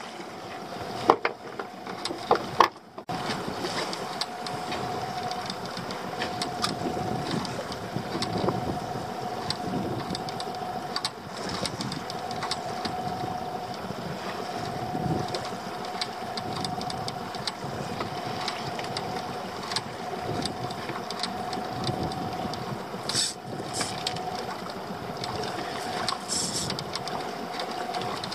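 A small fishing boat's engine running steadily with a constant hum, over wind and sea noise. A few sharp knocks come in the first couple of seconds.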